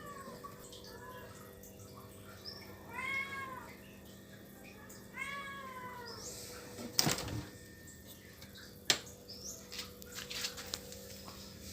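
Two drawn-out animal calls about two seconds apart, each rising then falling in pitch, followed by two sharp knocks.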